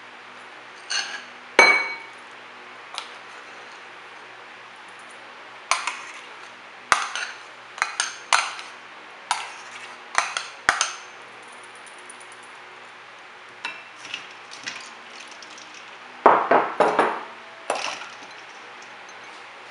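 Irregular clinks and knocks of a utensil against ceramic bowls as whipped cream is scraped from one bowl into another. Near the end comes a louder run of knocks as a ceramic bowl is shifted in a stainless-steel bowl of ice water.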